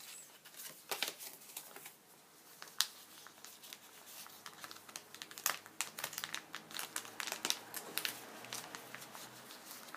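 Paper and card crinkling and rustling as hands handle small patterned paper compartments, with scattered sharp crackles that come more thickly in the second half.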